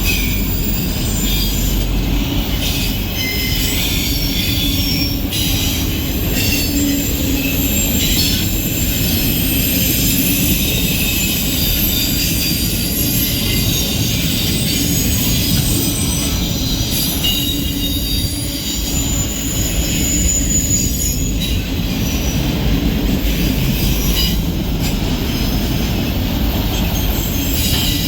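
Empty autorack freight cars rolling past, with a steady rumble of wheels on the rails and continual high-pitched wheel squeal that wavers in pitch.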